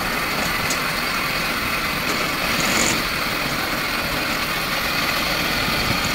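Engine of a small tracked rice harvester running steadily while the machine is driven up the loading ramps.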